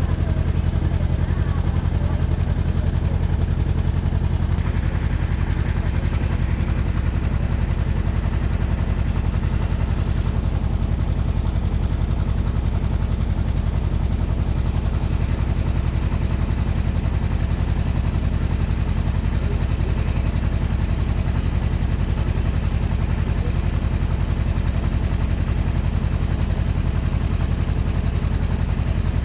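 Motorboat engine running steadily at cruising speed, with water rushing and splashing along the hull.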